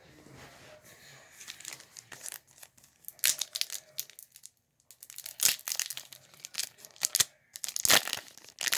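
Trading-card booster pack wrapper being torn open and crinkled in the hands: irregular sharp crackles and rips starting about a second in.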